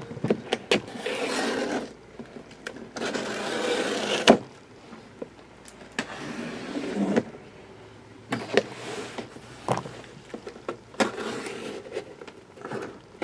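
Large sealed cardboard box being opened by hand: packing tape slit and torn and cardboard scraping, in several stretches of a second or two, with sharp knocks between, the loudest about four seconds in.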